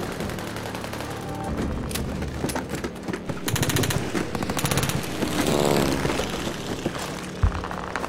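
Battle sound: rapid machine-gun fire and scattered shots, with a whistle falling in pitch about five seconds in and a single sharp bang near the end.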